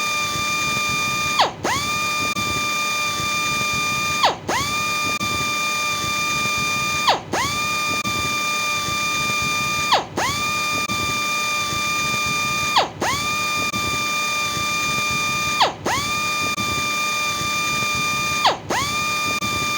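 Electric sander running with a steady high-pitched whine, its pitch dipping briefly and springing back about every three seconds, seven times.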